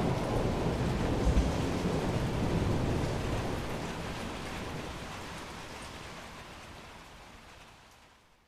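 Rain with a rolling rumble of thunder, the low rumble strongest in the first couple of seconds. The whole sound then fades away steadily to near silence by the end.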